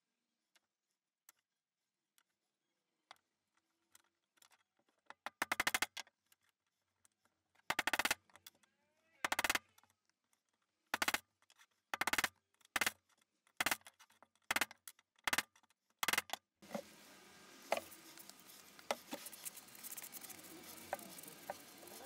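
Bursts of quick, light hammer taps, metal striking metal, seating hex nuts into the recesses of plywood star knobs: about ten short runs of rapid taps. Near the end they give way to a steady noise with scattered clicks.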